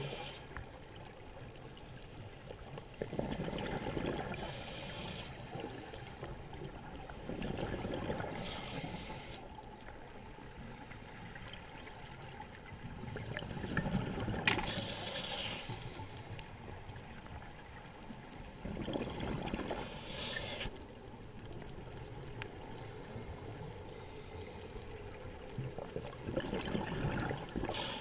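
Scuba diver breathing through a regulator underwater: each breath brings a hiss and a gurgling rush of exhaust bubbles, repeating about every four to five seconds.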